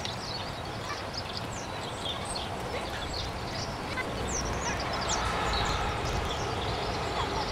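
Small birds chirping and singing: many short high calls scattered throughout, over a steady background hiss and a low rumble that grows about four seconds in.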